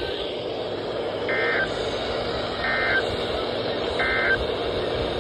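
Three short bursts of warbling digital data tones near 2 kHz, about a second and a third apart, over steady radio hiss: the Emergency Alert System SAME end-of-message code closing a weather radio warning.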